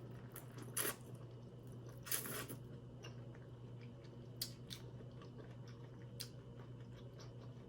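Close-miked mouth sounds of a person eating: soft chewing and smacking with scattered clicks, and a couple of slightly louder wet bursts in the first few seconds.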